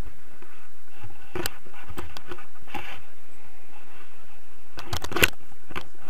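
Wind blowing across an action camera's microphone in paraglider flight: a steady low rumble with a few sharp crackles, several close together about five seconds in.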